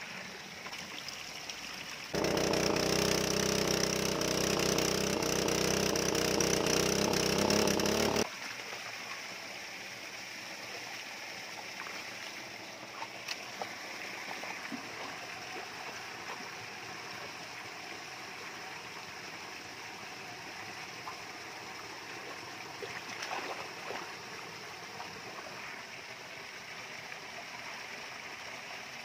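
Water pouring steadily from a pipe onto a muddy bank, with small splashes from hands working in the shallow water. About two seconds in, a much louder steady hum with rushing noise cuts in abruptly, then stops just as abruptly six seconds later.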